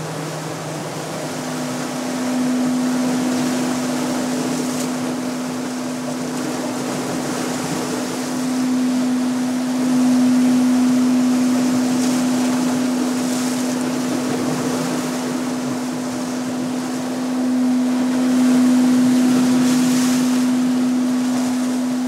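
A steady held drone tone that steps up from a lower pitch to a higher one about a second and a half in and then holds, over the wash of sea waves breaking on rocks.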